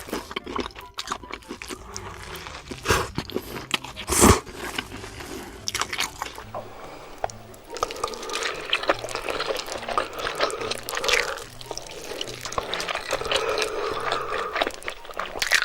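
Close-miked eating: crunchy bites and chewing, with one loud crunch about four seconds in and denser crunching and chewing from about halfway through.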